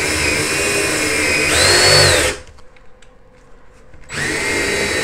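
Cordless drill (DeWalt) boring a hole through a wooden cabinet drawer front. The motor whines steadily, speeds up briefly near two seconds in, then stops; after a pause of nearly two seconds it starts running again.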